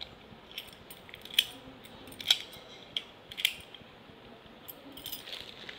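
A few sharp metallic clicks and clinks, about four distinct ones in the first three and a half seconds, as a heavy steel padlock and its keys are handled.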